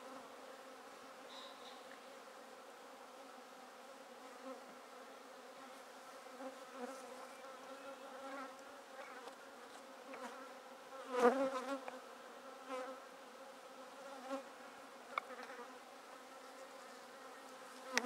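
Honeybees buzzing around an opened hive as their combs are lifted out: a steady hum with a brief louder buzz about eleven seconds in and a few smaller ones after.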